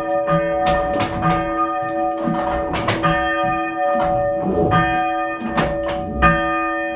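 A ring of three church bells, cast by Thomas Mears II of London in 1824, rung full circle in steady turn. The strikes come about two a second, each bell's note ringing on under the next, with low thuds beneath the strikes.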